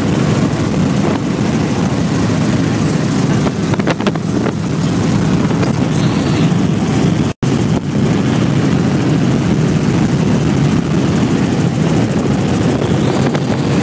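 Helicopter engine and rotor noise heard from inside the cabin: a loud, steady, low drone in flight. The sound cuts out completely for an instant about seven seconds in.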